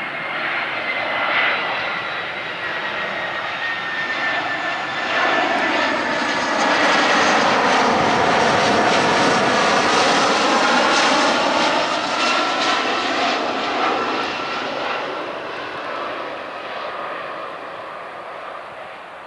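Airbus A320-214's CFM56 turbofan engines on landing approach, passing low overhead. The engine noise builds to its loudest midway as the jet passes over, with a high whine slowly falling in pitch, then fades as it moves away.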